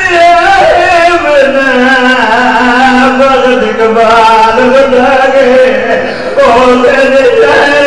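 A man sings a qasida, a devotional poem, through a microphone, drawing out long melismatic notes. His voice drops briefly about six seconds in, then picks up again.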